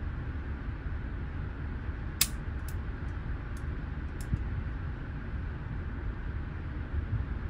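Steady low hum of an indoor shooting range's ventilation. One sharp crack sounds about two seconds in, followed by a few faint ticks.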